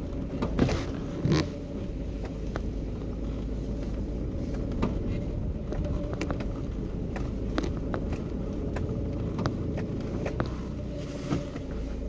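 Car rolling slowly along a dirt and gravel road: steady low rumble of engine and tyres, with scattered sharp clicks and pops of grit under the tyres, the two loudest about a second in.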